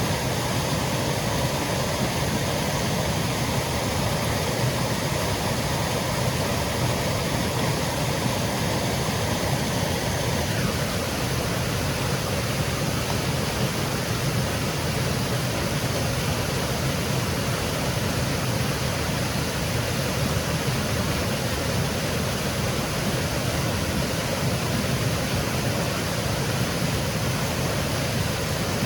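Small woodland waterfall: a steady rush of water cascading through the forest. A faint steady high hum lies underneath for the first ten seconds or so, then stops.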